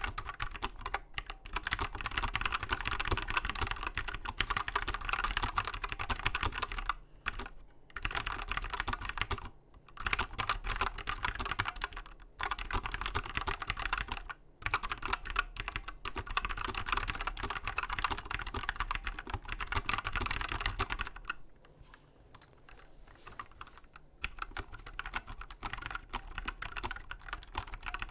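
Custom mechanical keyboard built on a Winkeyless b.face board being typed on quickly: a dense run of key clicks with a few short pauses, and a softer, sparser stretch about three-quarters of the way through.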